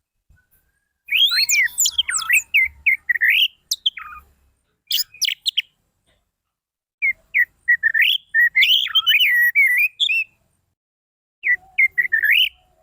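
Orange-headed thrush singing fast, varied phrases of sweeping whistles and chirps, in several bursts separated by short pauses.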